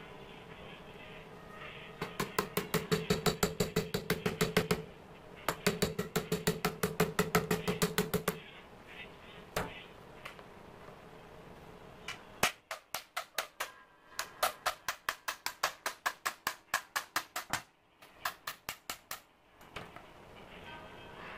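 Runs of rapid, evenly spaced metallic tapping, about six taps a second, from an electric planer's housing being worked on with a screwdriver during disassembly. A steady ringing hum sounds under the first two runs, and there are short pauses between the runs.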